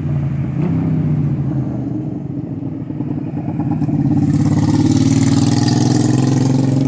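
Street traffic: engines running steadily, with a motorcycle growing louder from about four seconds in as it approaches.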